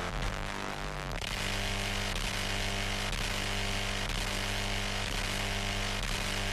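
Electronic intro music: sustained synth notes over a steady beat, with a brighter, buzzier layer coming in about a second in.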